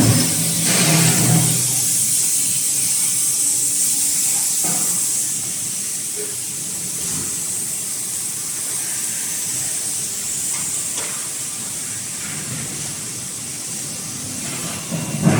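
Steady hissing of an automatic graphite die-lubricant spray on hot forging dies, the spray flashing to steam, with a low machine hum in the first couple of seconds and a few faint knocks.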